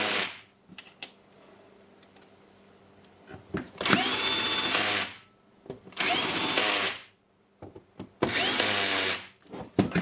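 Electric drill-driver running screws in, in three short bursts of about a second each, every burst spinning up quickly to speed, with a few small clicks between.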